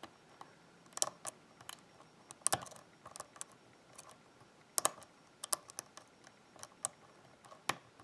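Hook pick working the pin stack of a brass 6-pin euro-cylinder lock under tension: a dozen or more sharp, light clicks at irregular intervals as the pins are lifted and set.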